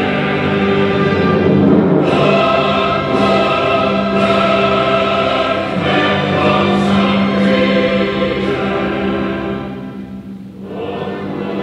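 Choir singing held chords with orchestral accompaniment, with a brief dip in loudness near the end between phrases.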